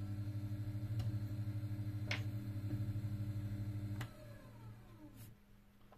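Mini bead lathe's motor (TornaTürk T03) running with a steady hum and a fast flutter, with a few light clicks. About four seconds in it is switched off with a click, and the spindle spins down, its whine falling away.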